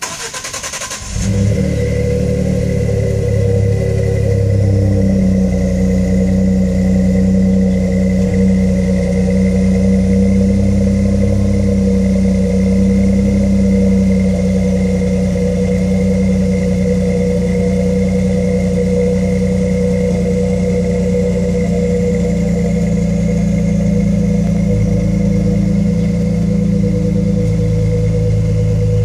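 Exhaust of a 2011 Ford F-150's 3.5-litre EcoBoost twin-turbo V6 through a Flowmaster 40 muffler on a cold start: the starter cranks for about a second, the engine catches, then it idles steadily. Recorded on a phone mic that thins the exhaust's deep note.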